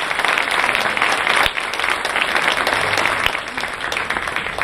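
Large audience applauding, the clapping dense at first and dying down near the end.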